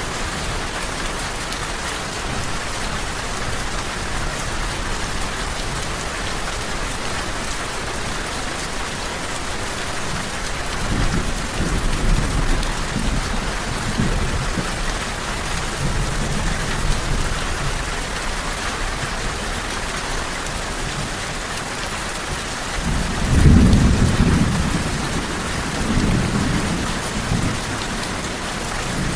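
Steady rain falling in an even hiss, with low rolls of thunder rumbling under it: one about a third of the way in and the loudest a little past two-thirds of the way through.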